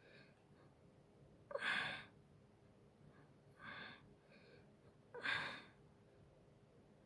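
A person breathing out audibly three times, short breathy sighs about two seconds apart, the middle one fainter.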